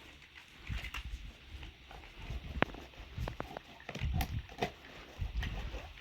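Animal noises with scattered sharp knocks and clatter.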